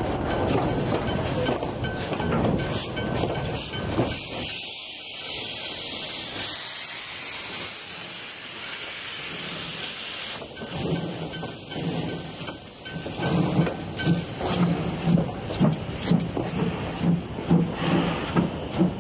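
Narrow-gauge steam locomotive and carriages of the Puffing Billy railway moving slowly past. First the carriage wheels rumble on the rails, then about four seconds in a loud steady hiss of steam venting from low down at the cylinders. From near the two-thirds mark a regular beat of about two a second sets in as the engine draws by.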